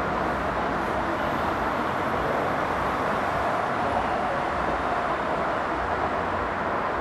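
Jet airliner engine noise: a steady rushing sound with a faint high whine that rises slightly about a second in, then slowly falls.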